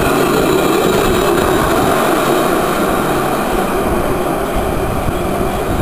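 Modern tram passing close by, a steady rolling noise of wheels on rails that eases off slightly toward the end.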